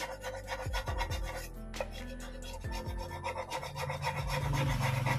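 Hand file rasping in repeated short strokes over the edge of a Honda EX5's aluminium engine side cover, filing off rough spots.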